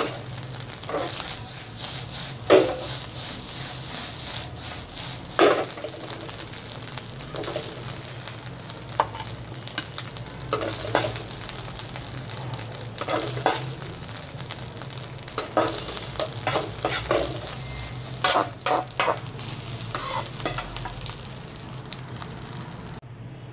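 Fried rice sizzling in a wok while a metal spatula stirs, tosses and scrapes it against the pan, in irregular strokes over a steady frying hiss. The sizzle cuts off suddenly just before the end.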